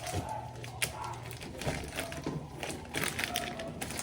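Irregular rustling and light knocks of a plastic bag of sausages being pulled out and handled in a kitchen.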